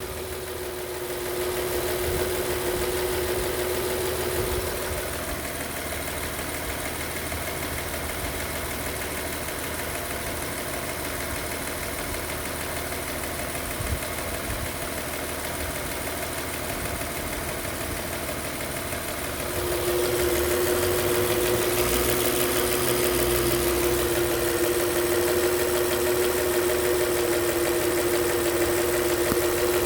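Hyundai Grandeur LPI's LPG engine running with a steady hum, which grows louder about two-thirds of the way through and stays so. The owner takes this engine noise for a problem with the car.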